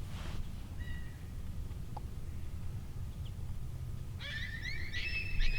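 Coyotes yipping and howling, several high wavering voices at once, starting about four seconds in over a low rumble.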